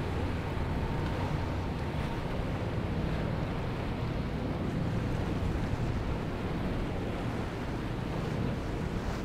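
Waves and surf with wind buffeting the microphone, and a passing boat's outboard motors running underneath.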